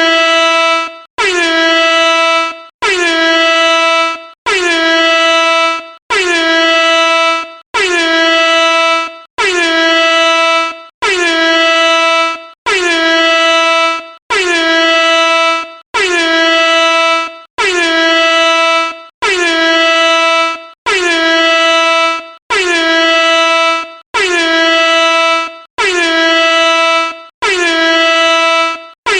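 Air horn sounding in a long run of identical loud blasts, roughly one every second and a half. Each blast is a single steady, buzzy note that slides briefly down into pitch at the start and stops sharply.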